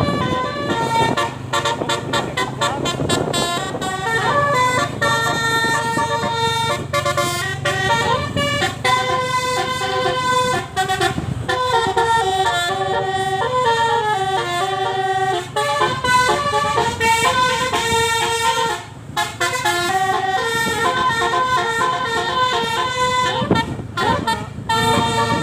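Tourist bus 'telolet' musical air horns playing a tune of quickly changing notes, several horn tones sounding together, with a low steady hum beneath.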